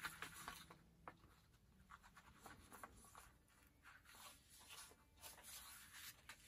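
Faint rustling and soft scraping of paper and a torn cotton fabric hinge being handled and smoothed by hand, in a scatter of small scuffs.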